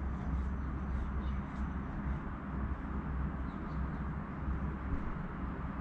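Steady low rumbling hum and hiss of room noise picked up by a pet camera's microphone, with a few faint, short high chirps.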